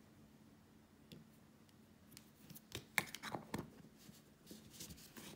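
Faint, scattered clicks and taps of small nail tools and plastic containers being handled on a work surface, with the sharpest click about three seconds in.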